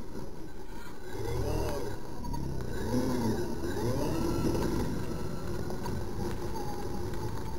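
Radio-controlled trophy truck's motor revving up and down in a few rising and falling sweeps as it drives and slides on loose dirt.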